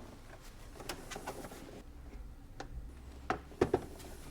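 Small clicks and taps of jumper wires being handled and pushed into the project board's connection grid, with a quick cluster of three sharper clicks near the end.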